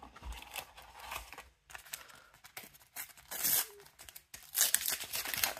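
A paper Panini sticker packet being torn open and its wrapper crinkled, in irregular bursts of rustling, loudest about three and a half seconds in and again near the end.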